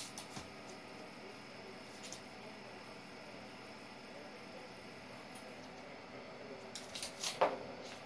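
Dog playfully mouthing a cat: faint scuffles and clicks, then about seven seconds in a brief cat cry that falls in pitch, the loudest sound.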